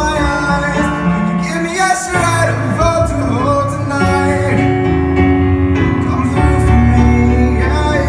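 Live song: a man singing while playing a keyboard.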